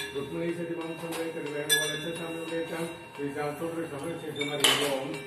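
Brass puja implements clinking and ringing as the aarti lamp is waved, over a man's chanting voice, with a short burst of hiss near the end.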